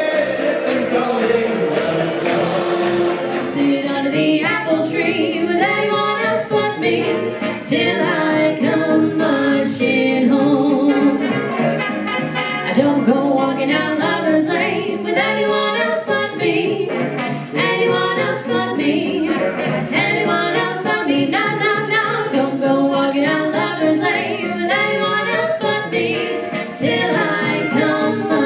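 Two women singing a 1940s-style song in close harmony into microphones, the two voices moving together in parallel.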